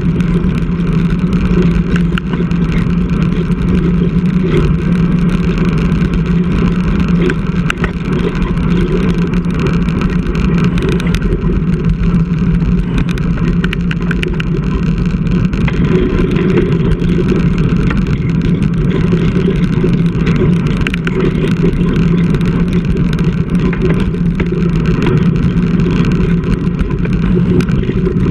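Steady wind rush and road rumble picked up by an action camera on a road bike being ridden, with a constant low drone and scattered small knocks from the road surface.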